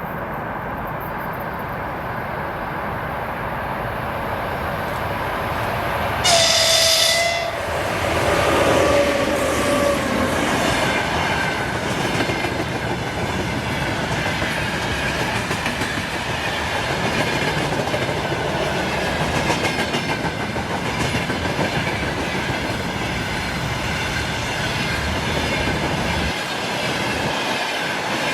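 Electric train approaching, then sounding its horn in a loud blast about six seconds in, the horn's pitch lower in a second note as the train passes. The wagons then roll by with a steady clickety-clack of wheels over the rail joints.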